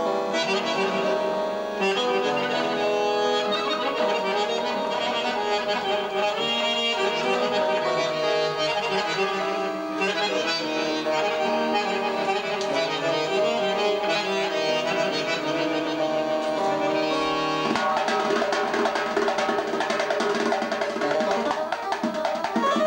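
Accordion playing a fast, ornamented folk melody, with a hand drum beating along under it; about three-quarters of the way through the drumming comes forward with dense, rapid strokes.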